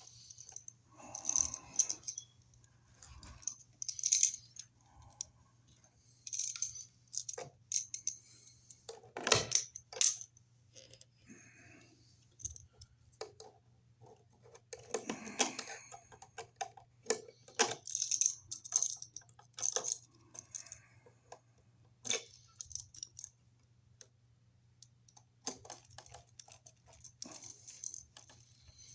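Irregular clicks, snips and light metallic clinks of wire strippers and small hand tools stripping insulation off copper electrical wires and working the wires for an outlet.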